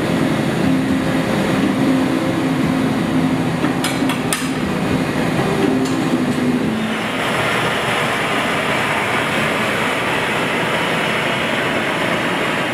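Steady rushing of a glassblowing studio's gas-fired furnace and glory hole, with a few light clicks about four seconds in. About seven seconds in, a steady hiss joins: a hand torch's flame played on the hot glass of a large vase.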